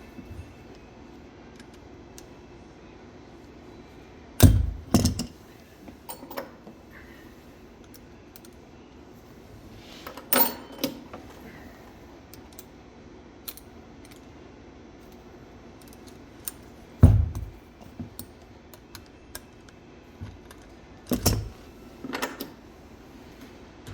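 Metal parts of a sterilizer safety pressure valve being handled during disassembly: several separate knocks and clinks, the heaviest about four and a half seconds in and again about seventeen seconds in, with lighter clinks between.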